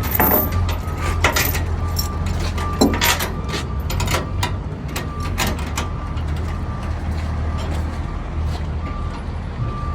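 Heavy diesel equipment running with a steady low rumble, with repeated short metal clanks and knocks throughout. A high beep sounds on and off.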